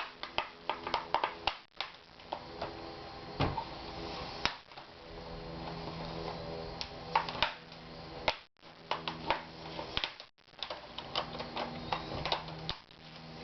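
Plastic clips of an Asus X54C laptop's screen bezel snapping loose as a fingernail pries around its edge: a string of irregular clicks and snaps, over a steady low hum.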